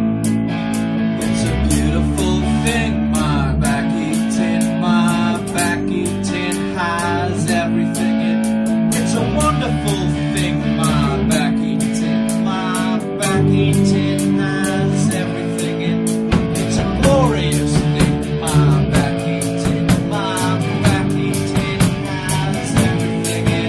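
Band music: electric guitar over a bass line, with drums keeping a steady beat.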